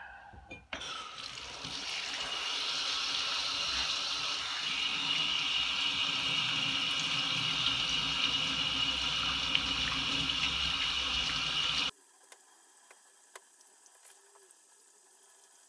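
Water from a sink spray head running steadily onto nickel mesh stretched on a wet wooden board, rinsing it as it is scrubbed. The flow starts about a second in and cuts off suddenly near the end, leaving only a few faint taps.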